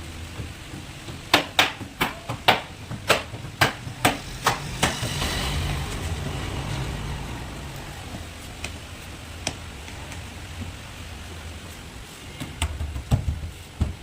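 A run of about ten sharp knocks over three and a half seconds, then a couple of seconds of hissing noise, all over a steady low hum; a few more quick knocks come near the end.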